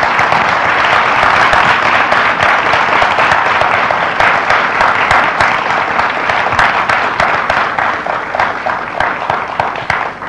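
A theatre audience applauding: dense, steady clapping that thins into more separate claps near the end.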